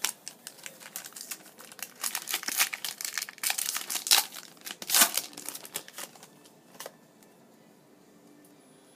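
Plastic wrapper of a 2015 Bowman football card pack being torn open and crinkled: a dense run of crackles that stops about seven seconds in.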